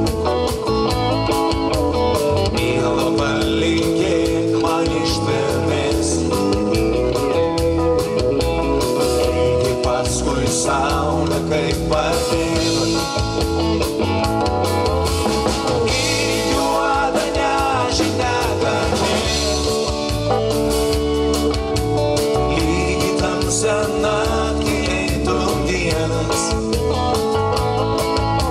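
A live rock band playing: electric guitar, bass guitar, drums and keytar, with a steady beat.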